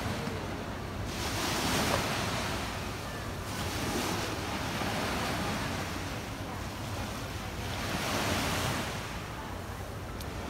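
Small sea waves washing up onto a beach, the hiss of the surf swelling three times, with a steady rumble of wind on the microphone.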